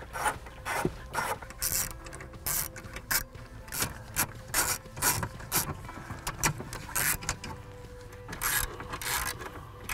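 Hand socket ratchet clicking in short, irregular bursts as it is swung back and forth to back out 7mm bolts.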